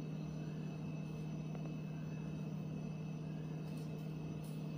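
Steady low hum with a thin high whine over it, a constant machine or electrical background noise, with a few faint soft ticks.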